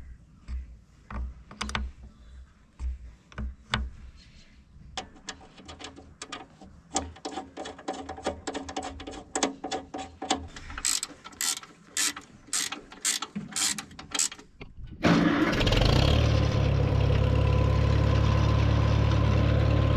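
A ratchet wrench clicking in short runs, the battery cables being tightened back on. About three-quarters of the way through, the Farmall M-TA's four-cylinder engine starts at once and runs steadily: the recharged battery has held enough charge to start it.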